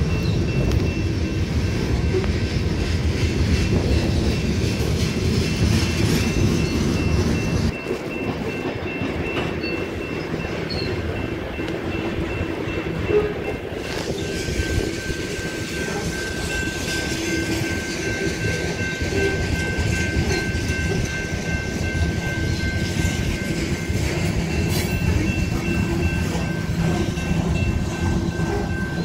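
Freight train of covered hopper cars rolling steadily past, a continuous rumble of wheels clacking over the rails. A railroad crossing's warning bell rings repeatedly over it.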